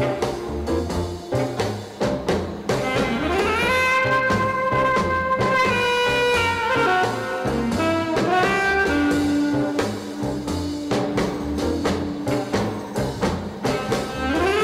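Slow jazz ballad: brass horns slide up into long held notes over a walking bass and soft drums.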